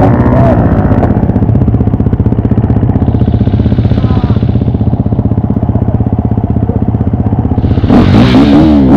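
TM 300 two-stroke motorcycle engine running at low revs with rapid, even firing pulses, then revving up about eight seconds in.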